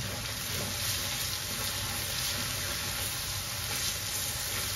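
Onion, garlic, chili and chicken bouillon cubes frying in hot oil in a wok, sizzling steadily as a silicone spatula stirs them.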